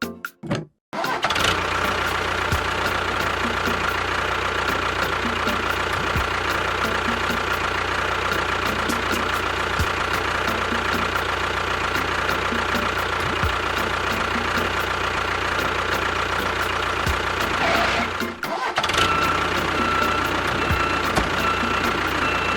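A small motor of a DIY model tractor/bulldozer runs steadily with a constant whine, starting about a second in. Near the end it cuts out briefly and then starts running again.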